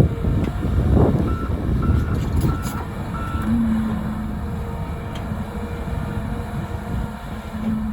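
Volvo EC300E crawler excavator's diesel engine and hydraulics working hard with heavy thuds, the bucket tamping down a fill slope. About a second in, a backup alarm beeps four times.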